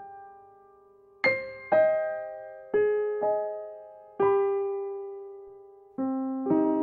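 Slow, gentle piano music: single notes and small chords struck one after another, each left to ring and fade before the next.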